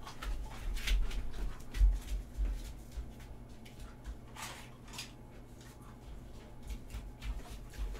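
Muffled footsteps and handling sounds of someone moving about off-mic: low thuds in the first few seconds, then a few scattered light clicks and knocks, over a faint steady hum.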